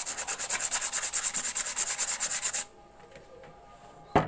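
Sandpaper rubbed by hand over the bamboo's surface in fast, even strokes, about ten a second, stopping a little past halfway. A sharp knock near the end.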